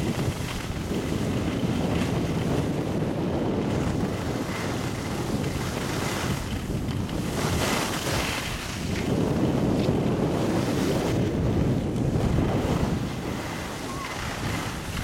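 Wind buffeting the camera microphone of a skier moving downhill, mixed with the hiss of skis sliding on packed snow. The noise swells and eases with the turns, dipping briefly twice.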